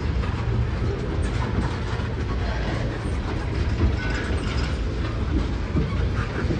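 Freight train of tank cars rolling past, a steady rumble of wheels on rail.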